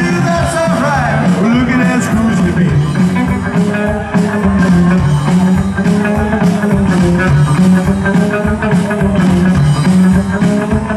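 Live rockabilly trio playing loudly: a hollowbody electric guitar leads over an upright bass line and drums. A vocal is heard at the start, then the guitar carries an instrumental passage.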